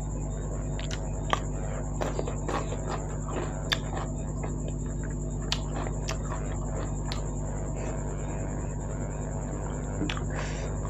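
Close-miked eating: chewing and wet mouth clicks, with a dozen or so sharp clicks scattered irregularly, over a steady electrical hum and a thin high whine.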